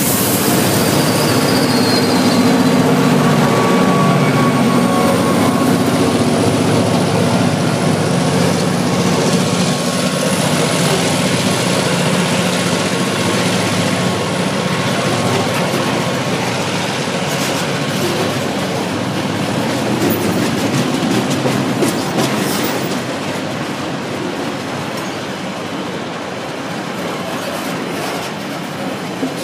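A diesel-electric freight locomotive working at full throttle passes close by, its engine drone fading over the first several seconds as a long rake of container wagons rolls past with steady wheel rumble. A thin high wheel squeal is heard at first, and a run of sharp clicks and knocks from wheels over rail joints comes about two-thirds through.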